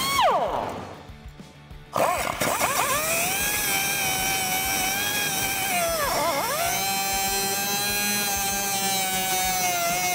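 Pneumatic cutoff wheel notching a steel frame shock bucket, a high whine with sparks flying. It winds down half a second in and is quiet for a moment. It spins up again at about two seconds and runs steadily, sagging sharply in pitch for a moment around six seconds.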